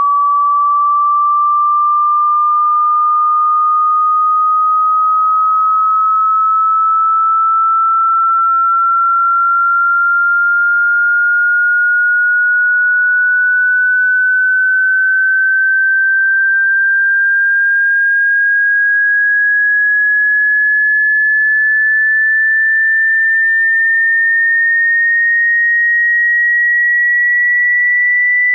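Electronic hearing-test tone: a single pure sine tone held at a steady, loud level while gliding slowly and evenly upward in pitch by nearly an octave, as part of a frequency sweep.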